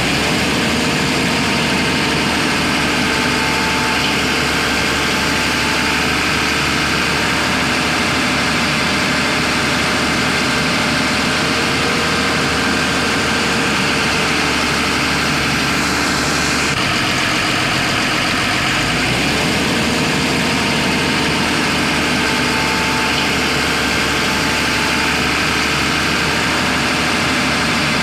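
Diesel engine of a JCB 3DX backhoe loader running steadily at a low, even speed.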